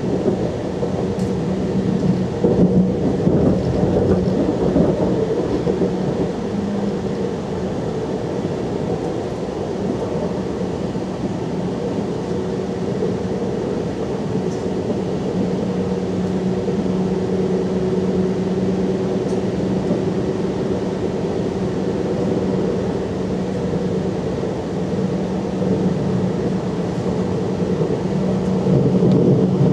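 Bombardier Talent 2 electric multiple unit running, heard from inside the passenger compartment: a steady rumble of wheels on rail with a low hum from the traction equipment.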